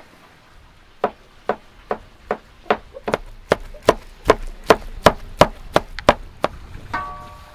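Heavy cleaver chopping cooked chicken meat on a wooden cutting board: about fifteen even chops, roughly two and a half a second, starting about a second in. A short ringing tone follows near the end.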